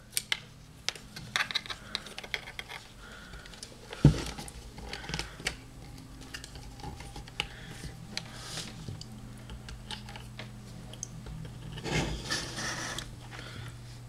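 Hands handling a camera and an HDMI cable: scattered small plastic clicks and taps, a louder knock about four seconds in, and a spell of rustling near twelve seconds, over a faint steady low hum.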